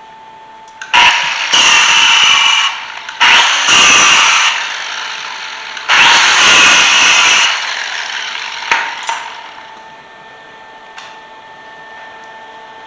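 Angle grinder working steel: three runs of a few seconds each, the motor fading off slowly after the last, over a faint steady hum.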